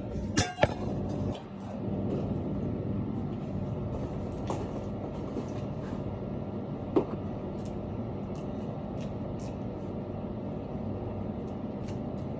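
Steady low rumble with a faint constant hum, like a running motor or vehicle, broken by two sharp clicks about half a second in and another about seven seconds in.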